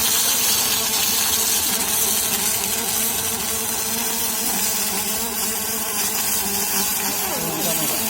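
Robotic laser welding machine at work: a steady high hiss with a buzzy hum under it, and a short falling whine near the end.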